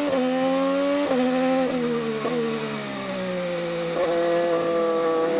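Onboard sound of an IndyCar's 2.2-litre twin-turbo V6 at racing speed: the engine note climbs with quick upshifts about once every half to one second, then falls away as the driver lifts off through the corner, and picks up again about four seconds in.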